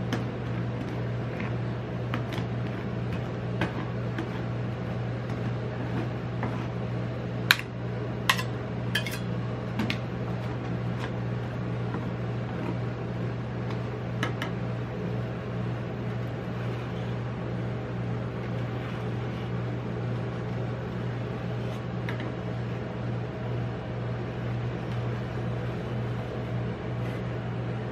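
Steady low hum of the rolled-ice-cream machine's refrigerated cold plate, with a metal spatula clicking and tapping on the steel pan. The loudest taps come in a quick cluster about seven to ten seconds in.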